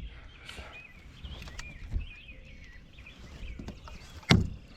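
A bird singing a warbling song in the background, over soft low knocks; about four seconds in, one sharp, loud knock stands out.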